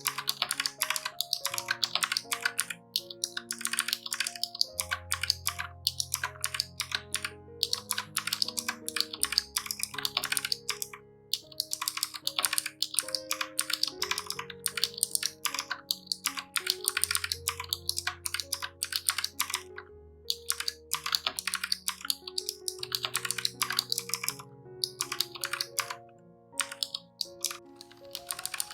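Typing on a Razer Huntsman Mini 60% mechanical keyboard with clicky switches: quick runs of key clicks broken by short pauses, over background music.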